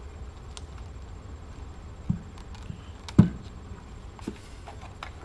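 A few light knocks and clicks of equipment being handled on a workbench, the loudest a sharp knock about three seconds in, over a steady low hum.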